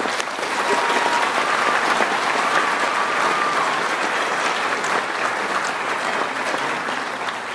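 Audience applauding, a dense steady clapping that tapers off toward the end.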